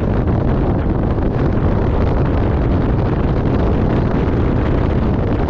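An 850 cc two-stroke mountain snowmobile running steadily, under heavy wind buffeting on the microphone.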